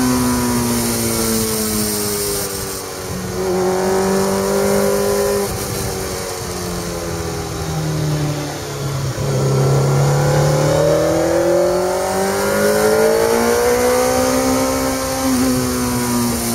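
Kawasaki Z1000 inline-four engine heard from the saddle, revs falling on a closed throttle with a quick jump up about three seconds in as it is downshifted, then climbing again from about nine seconds in as the bike accelerates. Wind rush runs underneath.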